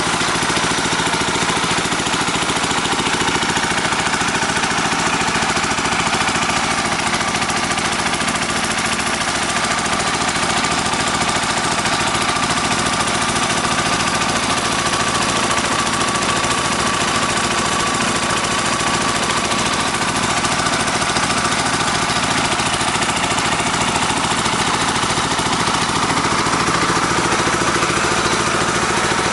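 Engine of a water-well drilling machine running steadily at constant speed, with a fast, even rattle.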